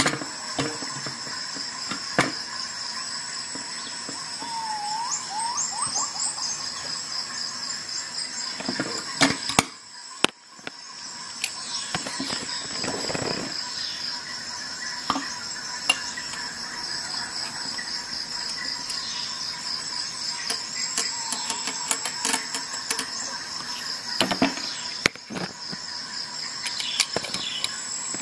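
Clicks, knocks and light scraping of a Lansky knife-sharpening kit being handled: the metal clamp, its thumbscrew, the hone and guide rod knocking together, with a steady high-pitched chirring tone behind.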